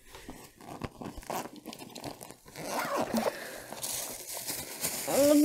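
Rustling, crinkling and small irregular knocks of objects being handled as someone rummages about. Near the end a voice slides up into a held note.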